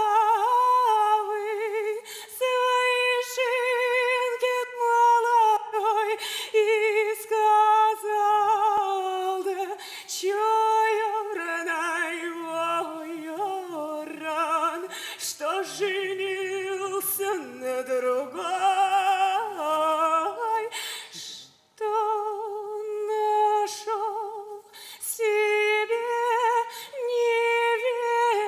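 A young woman singing a Russian folk song solo and unaccompanied, in long held notes that waver with a strong vibrato in the middle stretch. She breaks off briefly about three-quarters of the way through, then sings on.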